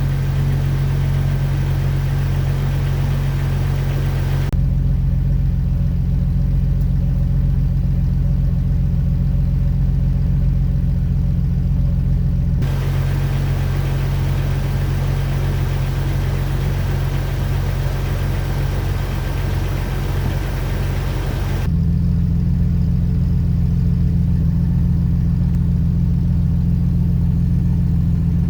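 Jeep Wrangler TJ's straight-six engine running steadily on fresh iridium spark plugs, its misfire cured. The engine note changes abruptly three times.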